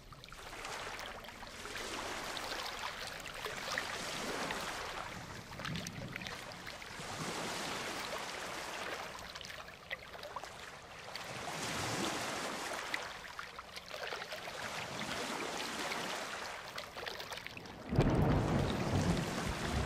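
Ocean surf breaking and washing up a beach, swelling and falling back every few seconds. Near the end a sudden louder, deep rumble of thunder breaks in.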